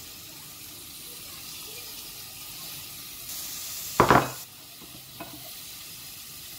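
Spice paste and freshly added chopped green onion stalks sizzling steadily in an aluminium pot on a gas stove. One loud knock about four seconds in, the loudest sound, with a faint click about a second later.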